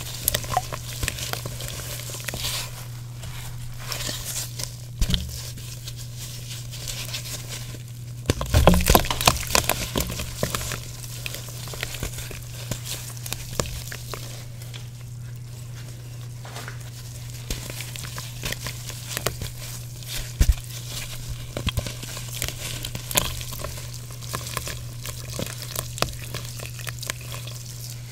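Gym chalk soaked in water being crushed and crumbled by hand: a dense run of small wet crackles and crunches, with a louder burst of crunching about eight seconds in.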